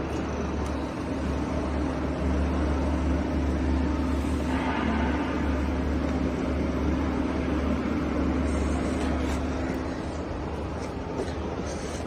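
Steady low hum of a running CNC lathe's motors, with a steady mid tone over it, easing slightly about ten seconds in.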